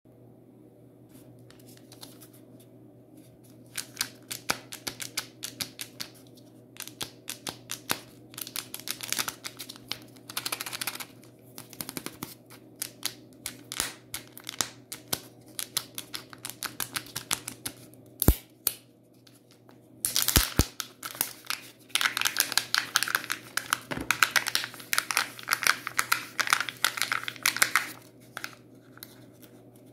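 Foil wrapper of a Kinder Joy egg crinkling and tearing as it is handled and peeled off by hand, with a few sharp clicks. The crinkling is densest from about twenty seconds in.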